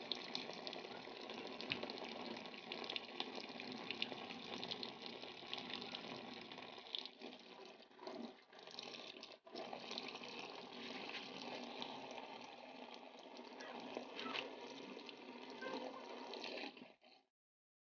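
Tap water running into a sink for handwashing, a steady splashing hiss. It dips briefly twice around the middle and cuts off abruptly near the end.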